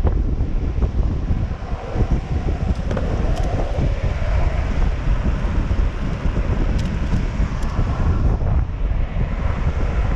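Strong wind buffeting the microphone over the steady rumble of longboard wheels rolling fast on asphalt.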